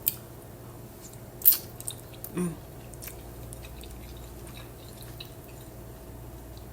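A person eating spaghetti: a few sharp clicks of a fork against a bowl, the loudest about a second and a half in, then quiet, wet chewing with many small ticks.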